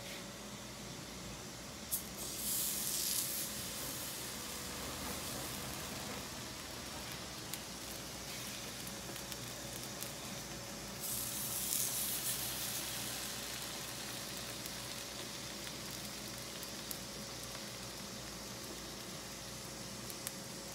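Batter sizzling as it is spooned onto a hot griddle, twice: a burst of hiss about two seconds in and again about eleven seconds in, with a fainter steady sizzle in between.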